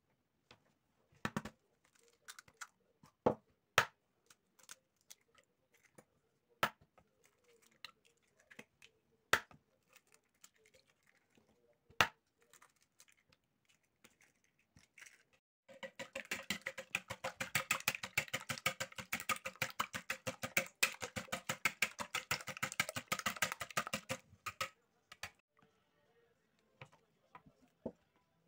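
Single sharp knocks every few seconds as eggs are cracked on the rim of a plastic mixing bowl. Then, about halfway through, some nine seconds of rapid, even clicking as the eggs are beaten by hand in the bowl.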